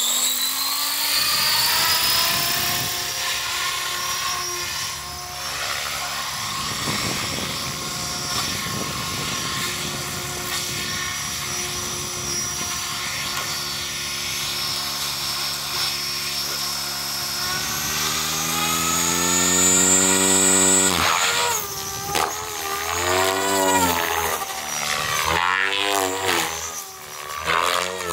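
Tron 7.0 RC helicopter's electric Xnova brushless motor and rotor head whining at a steady pitch as it holds head speed. About two-thirds of the way through the pitch climbs again. After that the whine swings up and down over and over as the helicopter flies and loads and unloads the rotor.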